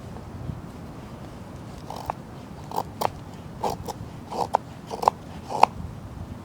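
A run of six short crunching sounds, each ending in a sharp click, a little under a second apart, starting about two seconds in.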